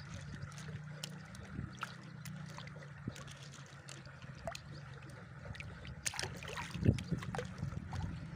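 Hands splashing and sloshing in shallow water while picking up mussels, with small sharp clicks throughout and a louder burst of splashing about six to seven seconds in. A steady low hum runs underneath.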